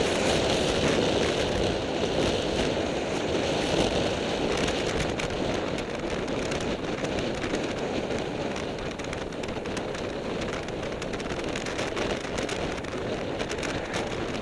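Wind rushing over the microphone of a camera riding on a road bike at speed, mixed with the hiss of tyres rolling on tarmac. Scattered small clicks come in from about four seconds on.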